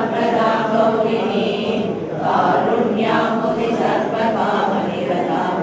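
A group of voices chanting a Sanskrit hymn together in unison, continuously.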